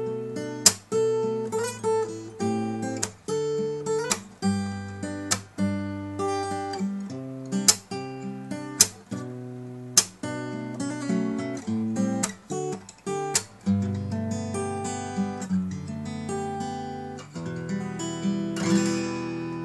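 Takamine ETN20C nylon-string acoustic-electric guitar played solo: a steady run of picked notes and chords, ending in a strummed chord left ringing near the end.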